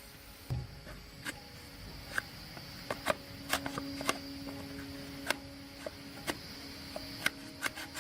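Irregular light clicks and taps, as of small parts and tools being handled, over a faint steady hum in the middle of the stretch.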